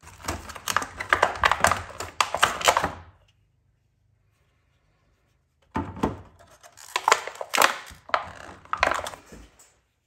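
Packaging being handled: a paper instruction sheet and a clear plastic clamshell blister pack crinkling and crackling with sharp clicks, in two bursts, the first about three seconds long and the second from about six seconds in.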